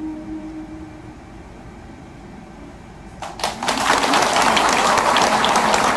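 The last held note of a Korean bamboo flute fades out in the first second. After a short lull, an audience breaks into applause about three seconds in, and the clapping carries on, the loudest sound here.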